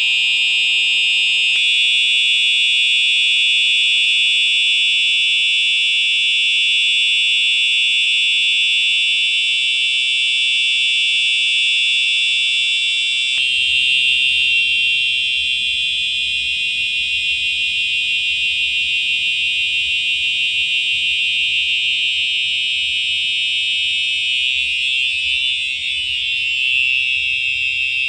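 Home fire alarm system's notification appliances sounding continuously during a bell test: a loud, steady, high-pitched alarm. Its tone shifts slightly about a second and a half in and again about thirteen seconds in.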